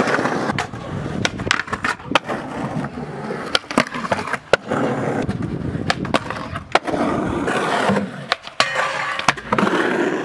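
Skateboard wheels rolling on concrete with a steady rumble, broken by repeated sharp clacks of the board: tail pops, landings and trucks knocking on the ground.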